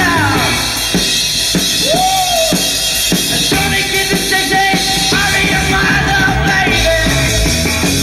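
Rock and roll band recording playing at full tilt: a driving drum kit under electric instruments and a shouted vocal.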